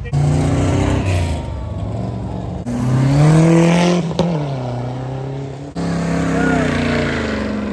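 Classic cars, among them a Fox-body Ford Mustang and a late-1960s Pontiac Firebird, accelerating past one after another with their engines revving and rising in pitch. The engine sound changes abruptly twice as one car gives way to the next.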